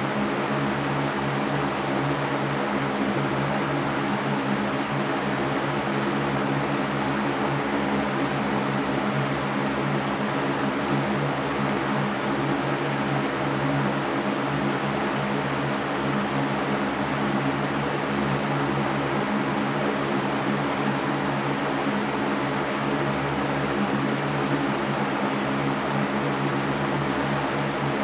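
Large Mastercraft electric fan running steadily: an even rush of air, with a steady low hum underneath.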